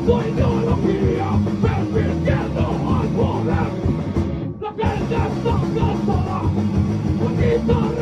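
Ska-core band playing live: electric guitars, bass and drums. The band stops for a split second about halfway through, then comes back in.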